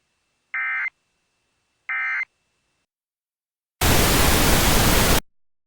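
Two short warbling data bursts about a second and a half apart: the end-of-message (NNNN) code of an Emergency Alert System broadcast. After a pause comes a loud burst of white-noise static lasting about a second and a half, which cuts off suddenly.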